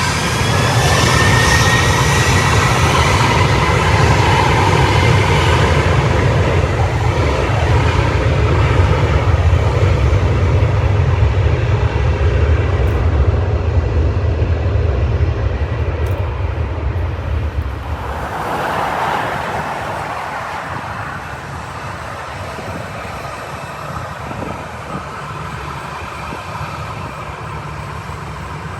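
Jet airliner engines running close by: a loud, steady rumble with a high whine in the first few seconds. About eighteen seconds in it cuts abruptly to a quieter, steady jet noise from another airliner.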